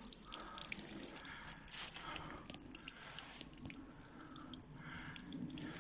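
Spring water trickling and dripping from a small pipe spout, a faint steady patter with many small drips.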